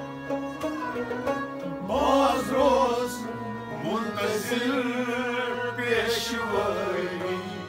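Music between the sung verses of a devotional song: plucked string notes at first, then from about two seconds in a wavering melody line with vibrato over steady held notes.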